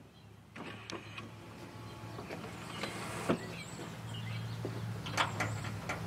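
Caterpillar diesel engine in a Freightliner truck idling with a steady low hum, with a few sharp clicks, loudest about three and five seconds in.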